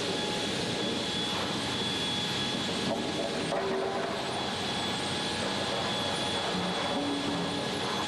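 Steady din of sawmill lumber-handling machinery: chain transfer conveyors and roller lines running, with a constant thin high whine over the noise.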